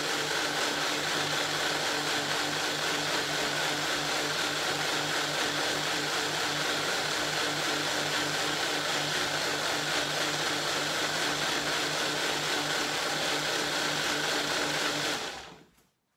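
Countertop blender running steadily, blending a thick hemp-seed and herb dressing, then switched off about fifteen seconds in, the motor winding down quickly to silence.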